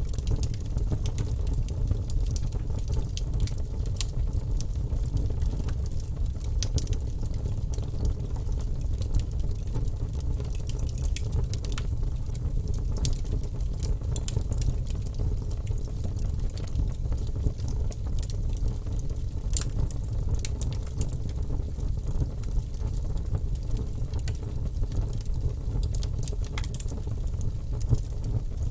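Wood fire burning in a fireplace: a steady low rumble of flames, with frequent sharp crackles and pops scattered irregularly throughout.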